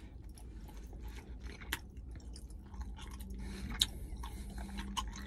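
A man chewing a mouthful of food, with irregular wet smacks and small mouth clicks. A faint steady hum comes in about halfway through.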